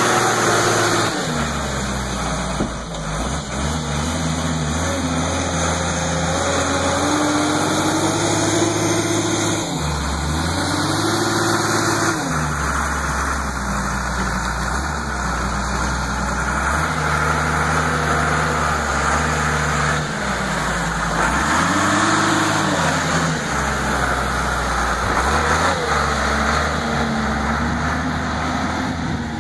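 New Holland 12D Turbo wheel loader's turbocharged diesel engine working under load, revving up and dropping back again and again as the loader shifts dirt, with several rising and falling swells in engine pitch.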